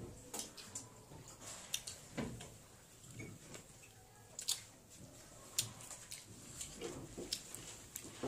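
Close-up eating sounds: chewing with scattered wet mouth clicks and smacks as rice and greens are eaten by hand.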